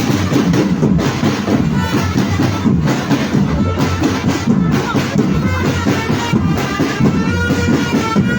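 Marching drum band playing: dense, steady drumming with a melody from wind instruments over it.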